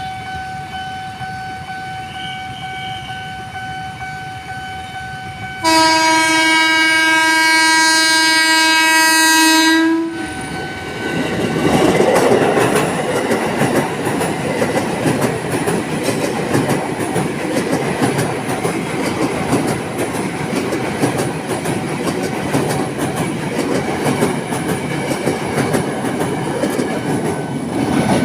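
Over a steady high tone, a train horn blows one long, loud blast of about four seconds. The train then passes over the level crossing, its wheels clattering over the rail joints in a steady rush of noise.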